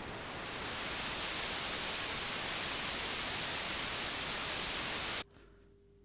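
Synthesised white noise from FL Studio's 3x OSC, swept by filter-cutoff automation: the hiss brightens over the first second or so into a full, bright rush as the filter opens, holds steady, then cuts off abruptly about five seconds in when playback stops.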